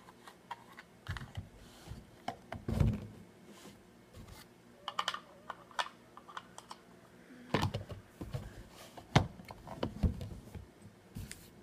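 Tech Deck plastic ramp sections and connector pieces being handled and pushed together on a table: irregular clicks and knocks of hard plastic, with a few louder taps.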